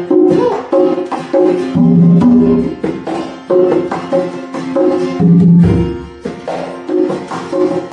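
Instrumental break of a Mandarin pop song between sung choruses: repeated melody notes over a bass line, in a regular rhythm.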